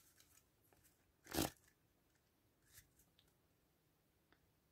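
Near silence, broken about a second and a half in by one short rustle of an oracle card deck being shuffled in the hands, with a few faint card ticks.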